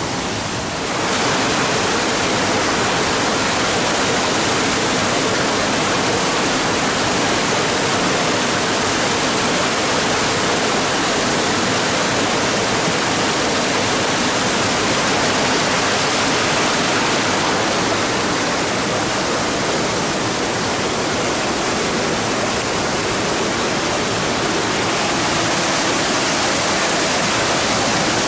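Small spring-fed waterfall pouring over rock into a pool, with a steady rush of splashing water that grows louder about a second in.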